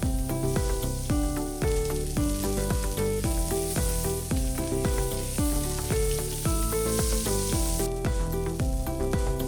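Background music with a steady beat and bass notes, over the high hiss of an egg omelette sizzling as it fries in a pan; the sizzle is strongest in the middle.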